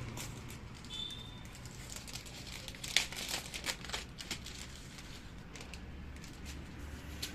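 Plastic packaging of an engine gasket kit crinkling and crackling as it is handled and opened, with the sharpest crackles bunched around the middle.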